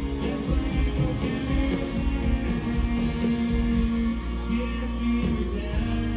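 Live country band playing through a large PA, heard from the crowd: amplified guitars over bass and drums, with a voice singing over the band.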